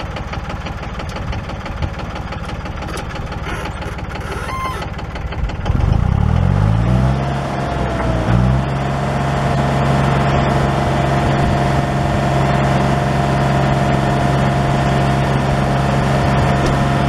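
A 1981 tractor's engine idling, then revved up about six seconds in and held at a steady higher speed with a faint whine over it, the throttle opened to pull the plow.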